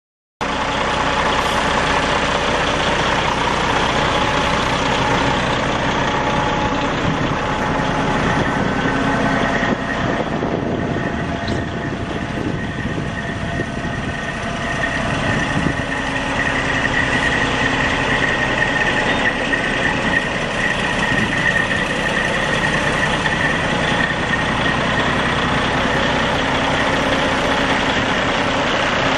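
Detroit Series 60 12.7-litre diesel in a Volvo semi truck, idling steadily. A thin high whine grows stronger through the middle.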